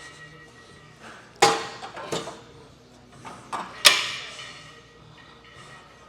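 Metal weight plates clanking as a T-bar row is loaded: four sharp clanks with a short ring, the loudest near the end.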